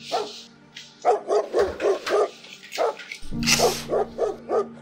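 A dog barking in runs of quick, short barks, about five a second, in three bouts.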